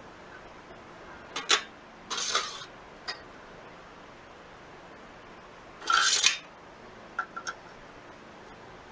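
Metal hand tools and small metal parts clinking and rattling during engine reassembly work: a couple of sharp clinks, a short rattle about two seconds in, a louder rattle about six seconds in, then three light taps.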